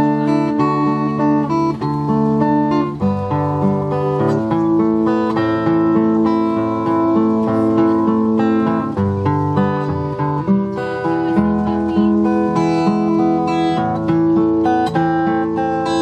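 Solo acoustic guitar playing an instrumental piece, with no singing.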